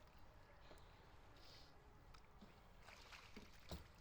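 Faint sounds of kayak paddling: soft water sounds and a few light knocks in the second half, the loudest one near the end, over a low steady rumble.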